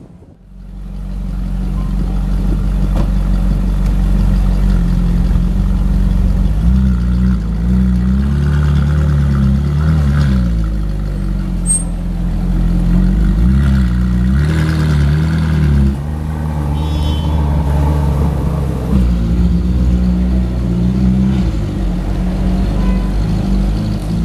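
Ferrari 458 Italia's V8 running at low revs through a Novitec Rosso aftermarket exhaust, loud and steady. Its pitch rises and falls a little with light throttle as the car moves slowly.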